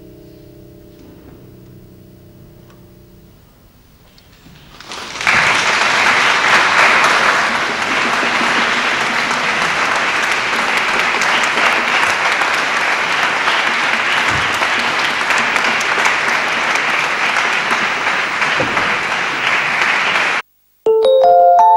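The last held notes of a chamber ensemble die away, and after a moment's hush audience applause breaks out about five seconds in and continues evenly. The applause cuts off abruptly near the end, and a short chiming mallet-percussion jingle follows.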